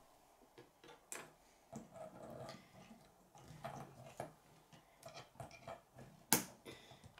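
Plastic K'nex rods and connectors clicking and rattling as they are handled and snapped together, in scattered light clicks, with one sharper click near the end.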